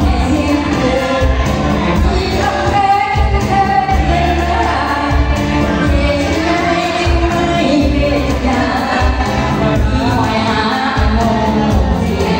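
A woman singing into a microphone over loud amplified backing music with a steady bass beat.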